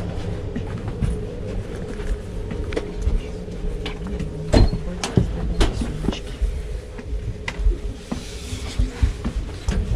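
Wheeled suitcase pulled along a sleeper-train carriage corridor, with scattered knocks and clicks as it bumps along, over a steady hum.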